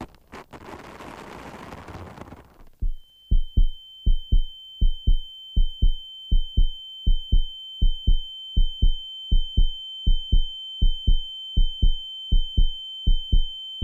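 A heartbeat sound effect: low double thumps about every three-quarters of a second over a steady high-pitched ringing tone, the dazed, ears-ringing effect laid over a crash. It starts about three seconds in, after a stretch of faint rushing noise that cuts off.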